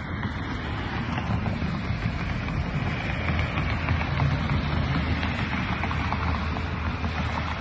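Push broom spreading wet asphalt mastic patch back and forth over cracked pavement, a steady scraping swish, with a low rumble of wind on the microphone underneath.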